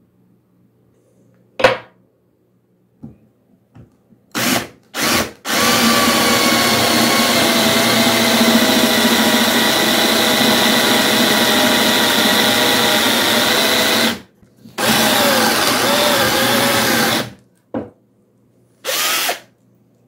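Electric drill running a restored twist drill bit into a wooden beam: two quick blips of the trigger, then a long run of about nine seconds, a second run of about two and a half seconds, and two short bursts near the end, the motor's pitch wavering slightly under load. A single sharp knock comes just before, about two seconds in.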